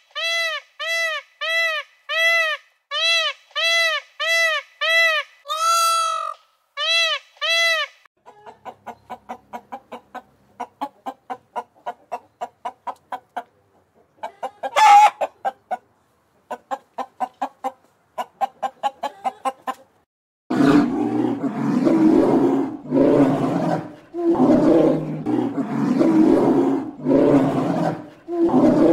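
A run of animal calls. First, short meows repeat evenly at about two a second. About eight seconds in they give way to rapid hen clucking. From about twenty seconds in come louder, rough, noisy calls in repeated bursts.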